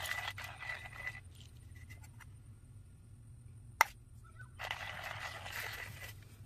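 Hand-cranked stainless-steel coffee grinder grinding beans, a dense gritty scraping that stops about a second in. A sharp metallic click follows in the middle, then a similar grinding scrape for about a second and a half near the end.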